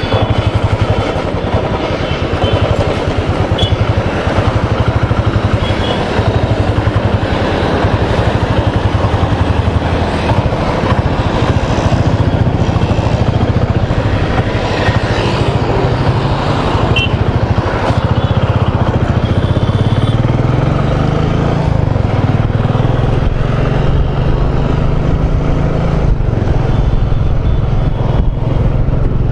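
Royal Enfield Bullet 350's single-cylinder engine running under way, a fast even beat with wind rush over it. About twenty seconds in the engine note climbs as the bike speeds up, then holds steady.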